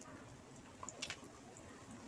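Faint eating sounds of rice and fish curry being chewed, with a few short wet mouth clicks about a second in.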